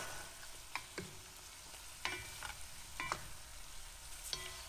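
Chicken pieces with onions, garlic and ginger sizzling in a metal pot as a wooden spatula stirs them. The spatula knocks against the pot about every second, each knock with a short ring.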